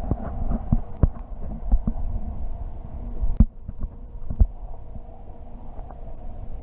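Muffled underwater rumble and hum picked up by a submerged camera, with irregular dull knocks, most of them in the first half and the loudest a little past three seconds in.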